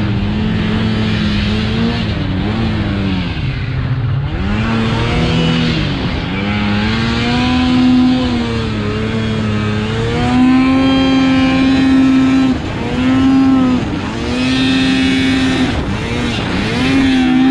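Snowmobile engine revving under load through deep powder snow, its pitch rising and dipping again and again with the throttle, with brief drops in revs every few seconds.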